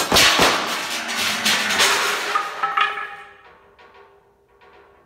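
Music: a sudden loud percussion hit with a few quick strikes, then a ringing chord that fades away over the next few seconds.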